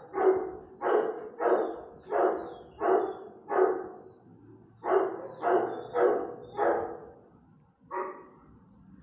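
A dog barking in a steady series: six barks, a short pause, four more, then a single bark near the end.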